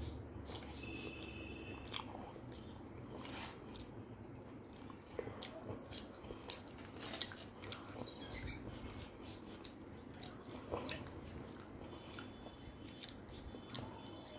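Close-up eating sounds: chewing and biting into luchi, soft puffed fried bread, with potato curry, with irregular wet mouth clicks and smacks. There is a soft tearing of the bread at the plate around the middle.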